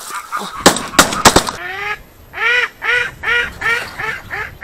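Shotgun shots fired in quick succession about a second in, followed by a steady run of goose honks, about three a second.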